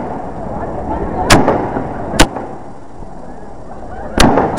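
Fireworks going off: several sharp bangs at uneven intervals, over a background murmur of voices.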